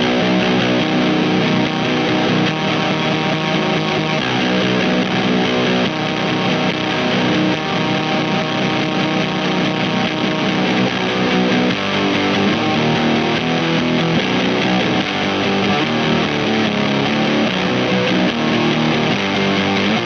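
Eastwood Sidejack Deluxe baritone electric guitar played through an amplifier, low notes and chords ringing on without a break.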